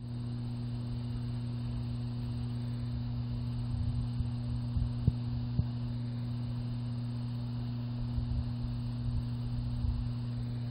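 Steady low hum of grain elevator machinery: one low tone and a fainter overtone above it, with a couple of faint ticks about five seconds in.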